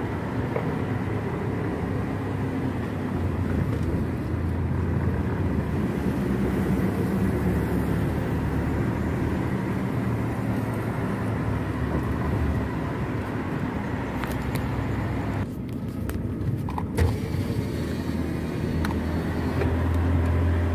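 Car driving along a road, a steady low rumble of engine and tyre noise heard from inside the cabin. A couple of light clicks come about three-quarters of the way through.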